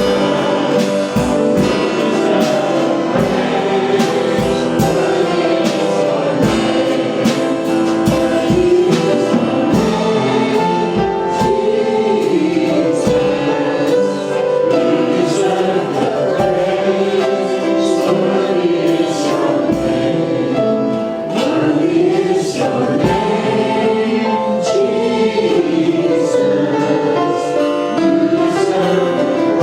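Gospel worship music: a choir or congregation singing with a worship band, over a steady drum beat.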